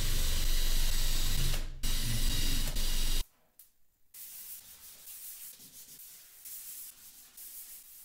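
Cordless drill running as it drives screws into wooden slats, in two spells with a short break, cutting off about three seconds in. After that comes quieter, uneven rubbing as the wooden drawer box is sanded by hand.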